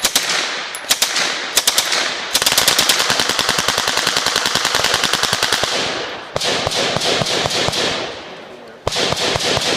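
Uzi submachine gun firing on full automatic. A few separate shots and quick pairs come first, then a long burst of about three and a half seconds, a shorter burst, and another burst starting about a second before the end.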